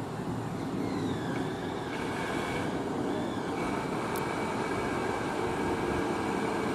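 Class 399 Stadler Citylink tram-train pulling slowly into a platform. Its running gear makes a steady rumble, overlaid with high whining tones that glide about a second in and then hold level.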